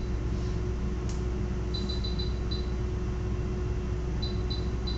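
Steady low hum of equipment in a veterinary treatment room, with short high electronic beeps from patient-monitoring equipment: a quick run of five around two seconds in and three more near the end. A single light click about a second in.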